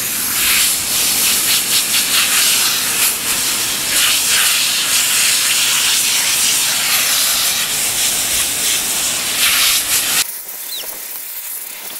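Water from a garden hose spraying onto a dog's wet coat and splashing on paving stones: a steady hiss that cuts off suddenly near the end.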